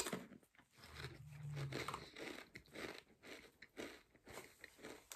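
A person chewing a mouthful of thick kettle-cooked potato chip, with a run of short crisp crunches. About a second in comes a low closed-mouth hum.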